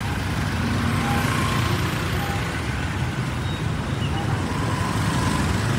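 Steady street traffic noise: the engines of motorbikes and tuk-tuks running in the road.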